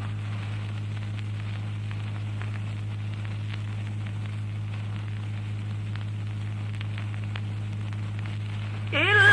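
Steady low electrical hum with hiss and faint crackle from the sound system or recording. Near the end a man's chanting voice comes in on a rising note.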